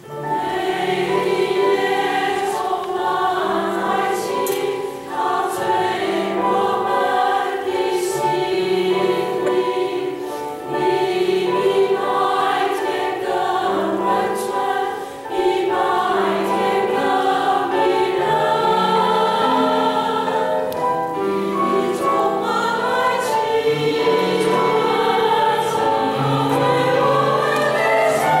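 A women's choir singing together in sustained, legato phrases, with short breaks for breath between phrases.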